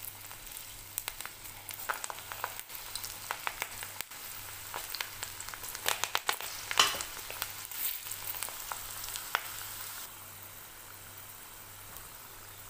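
Besan-coated okra pieces deep-frying in hot oil in a kadai: a steady sizzle with many small crackles and pops, loudest about six to seven seconds in as more pieces are dropped into the oil, then quieter and steadier for the last couple of seconds.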